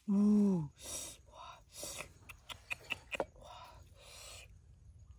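A short, loud voiced sound from a person right at the start, dropping in pitch as it ends. Then a string of rough scrapes and light knocks from a cleaver working a whole fish on a wooden cutting board.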